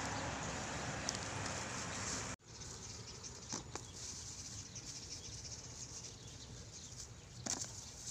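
Rustling of dry grass and stubble, with a few light clicks and taps, as someone crouches and picks things into a wicker basket. About two and a half seconds in the sound cuts off abruptly, then returns as a quieter background with occasional soft taps.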